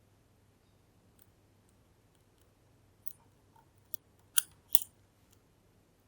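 Lock picking in a Kale Kilit 10-pin dimple lock: faint, scattered metallic ticks from the pick working the pins. Then two sharp, louder clicks in quick succession a little past halfway.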